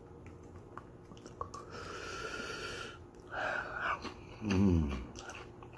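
A man eating hot-sauce-covered pickle chips, reacting to the heat of the Reaper sauce: faint crunchy chewing clicks, then a hissing breath through the mouth lasting over a second, a short breathy puff, and a low falling "mmm" from the throat near the end, the loudest sound.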